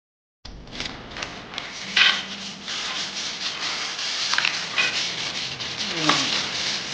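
Rubbing and scraping noises with frequent light clicks and knocks, a louder knock about two seconds in and a short falling squeak near the end.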